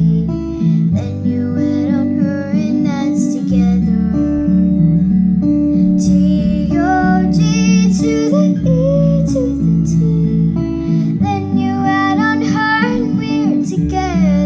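Song with strummed acoustic guitar over sustained bass notes and a woman singing.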